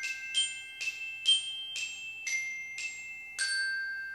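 Logo intro jingle of bright, bell-like struck notes, about two a second, each left ringing. The last note, about three and a half seconds in, rings on and slowly fades.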